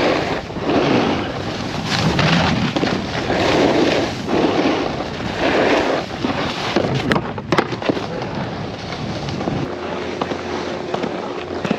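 Snowboard edges scraping across hard-packed snow in a series of turns, the scrape swelling and fading about every second and a half, mixed with wind rush on the helmet camera's microphone. A few sharp clicks come about seven seconds in, then a steadier, quieter glide with a faint low hum near the end.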